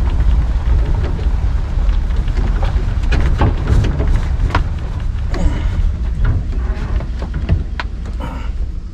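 Small fishing boat under way: a steady low rumble of the motor mixed with wind on the microphone, with scattered short knocks, easing off near the end.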